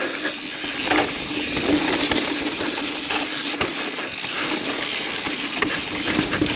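Yeti SB150 mountain bike descending a rough dirt trail: the rear hub's freewheel buzzing steadily while coasting, with tyre noise on dirt and many small rattles and knocks from the bike over the bumps.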